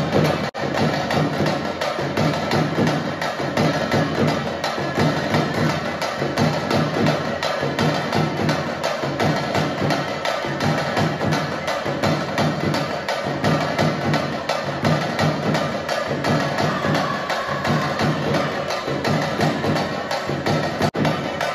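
Dance music with a fast, steady percussion beat.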